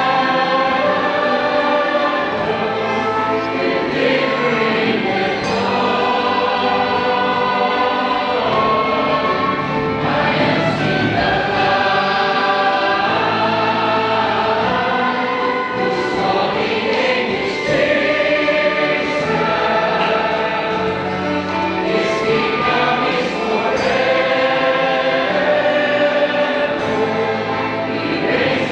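Church choir singing a gospel song in long held chords.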